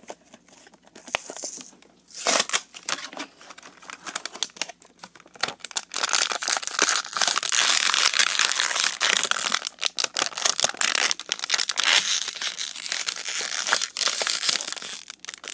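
A toy figure's packaging being torn open and crinkled by hand: scattered tearing and crinkling at first, then a steady run of crackling with many small clicks from about six seconds in.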